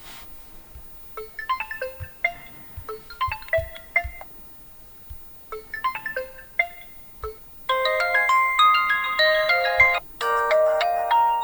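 OPPO Find X2 Neo smartphone playing ringtone previews one after another through its loudspeaker. First come several short, bright chiming melodic phrases, then two fuller, denser tunes near the end; the first of these cuts off abruptly as the next begins. Soft low thumps fall between some of them.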